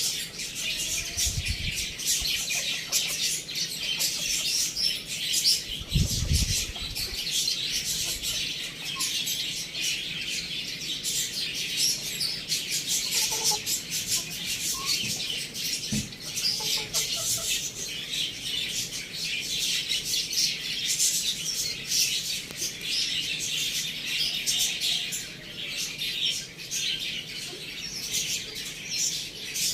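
Many small birds chirping together in a dense, unbroken chatter, with a couple of low thumps in the first few seconds.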